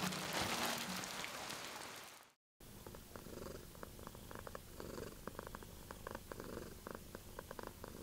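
Background music fades out and breaks off in about a second's silence. Then a domestic cat purrs steadily, in slow swells, with a faint crackle running through it.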